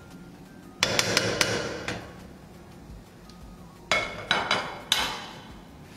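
A cooking spoon knocking and scraping against a metal pot while chopped onions are spread evenly in it: two bursts of clatter, about three seconds apart.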